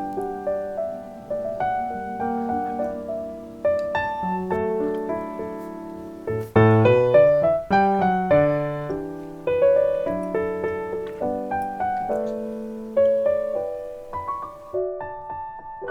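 Solo piano music playing gentle sustained chords and a melody.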